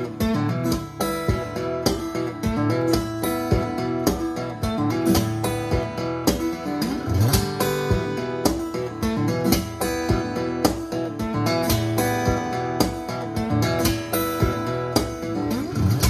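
Background music with a steady beat, led by guitar.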